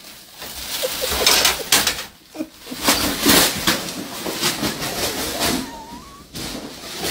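A plastic shopping bag rustling and crinkling as a cat moves about inside it, for the first few seconds. After that it goes quieter, with a short wavering high note near the end.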